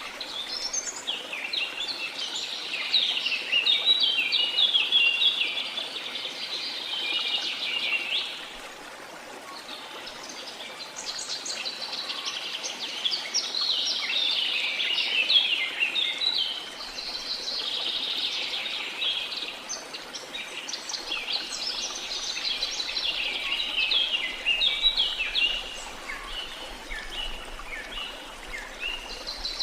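Songbirds singing in long runs of rapid high notes, with a pause about eight seconds in, over a steady rush of waterfall water.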